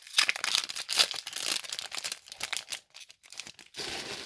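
Foil wrapper of a Pokémon booster pack crinkling and tearing as it is ripped open, busiest in the first second and a half, then in scattered crackles.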